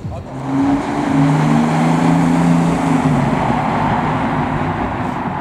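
A car driving off under power, its engine note loud and steady. The sound swells about half a second in and eases slightly near the end.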